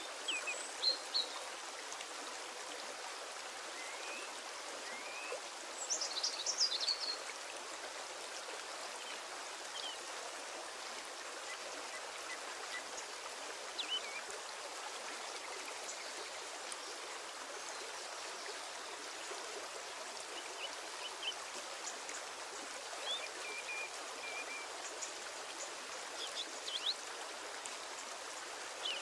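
Steady hiss of background noise, with scattered faint short high chirps, a cluster of them about six seconds in.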